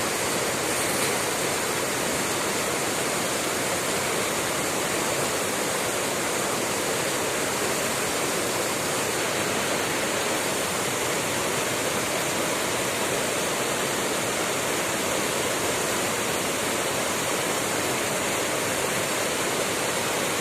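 Fast-flowing river water rushing, a steady even noise throughout.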